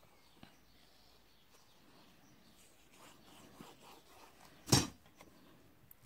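Quiet paper handling at a craft table: liquid glue squeezed from a squeeze bottle onto designer paper, and the paper handled and pressed down, with faint scattered rustles and one short, louder rustle or pat about three-quarters of the way in.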